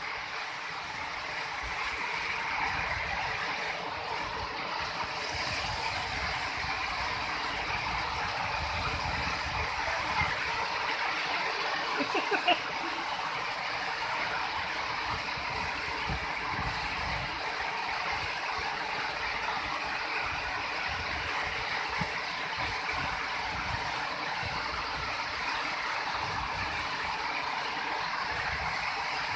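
Steady outdoor noise with wind rumbling on the microphone, and a few faint clicks about twelve seconds in.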